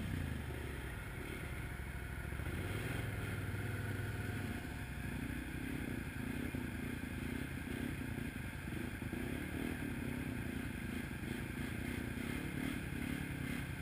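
ATV engine running at low speed while it crawls through tall grass and mud, with a pulsing low rumble from about four seconds in. At the start, a second ATV's engine falls away as it passes close by.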